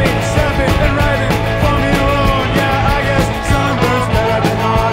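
Rock music with a steady drum beat and guitars.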